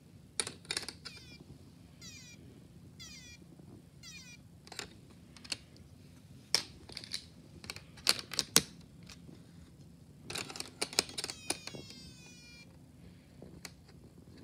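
Snap Circuits whistle chip (a piezo element) sounding short electronic chirps that each fall in pitch, a few sets in the first seconds and a quick run of them about three-quarters of the way through. Sharp clicks and knocks from the plastic snap parts being handled come in throughout, loudest near the middle.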